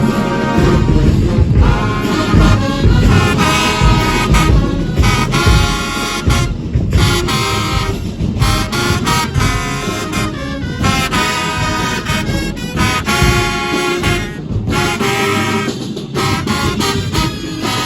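HBCU-style marching band playing: brass section blasting held chords in short phrases over steady marching drums.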